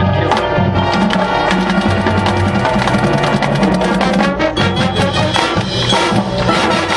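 High school marching band playing: brass sustaining chords over a dense run of drumline and percussion hits.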